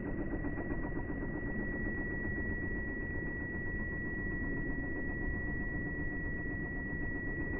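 Small electric motor running steadily, with a constant high-pitched whine.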